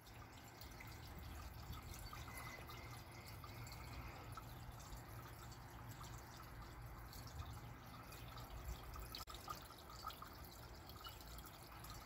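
Faint patter of water dripping and trickling in a small homemade wine-bottle fountain, water falling from the tipped bottle into wine glasses and the barrel basin below.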